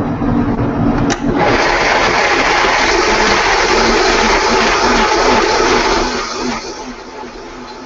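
Countertop blender running. A click about a second in and the motor goes up to a loud, even whir. About six seconds in it drops back to a quieter steady run.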